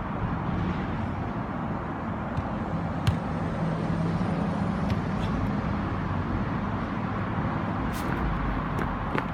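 Steady hum of road traffic, with a sharp knock about three seconds in and a few more near the end.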